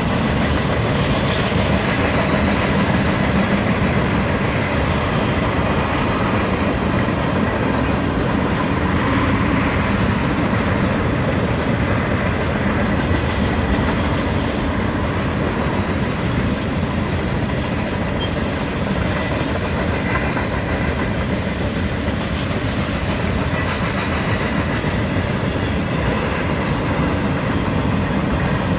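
Freight train's cars rolling past steadily, steel wheels running on the rails.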